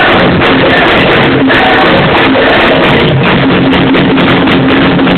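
Live world-music drum band playing loudly: many drummers striking a dense, continuous beat over steady pitched tones.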